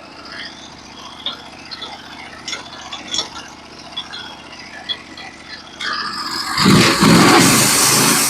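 Norwood HD36v2 portable bandsaw mill running low with light rattles and clicks. About six and a half seconds in, it gets much louder as the saw starts the next board cut.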